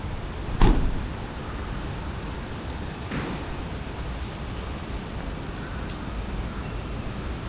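City street noise: a steady low rumble of traffic, broken by a loud sudden knock just under a second in and a weaker one about three seconds in.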